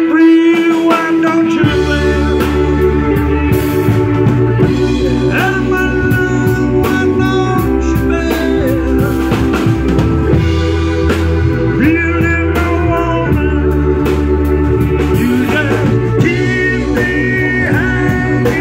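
Live blues-rock band playing: organ and synth keyboards with bass, drum kit and electric guitar. The keys hold a sustained chord alone at first, and the bass and drums come in together about two seconds in.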